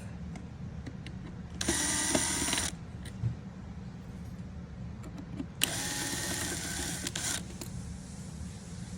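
Cordless power screwdriver running twice, about a second and then nearly two seconds, with a whirring motor whine as it backs out screws.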